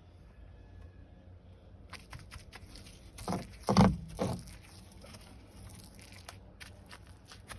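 Crackling, crinkling noise of wet fiberglass cloth being worked over with resin to press out air pockets, starting about two seconds in, with three heavy thumps close together near the middle.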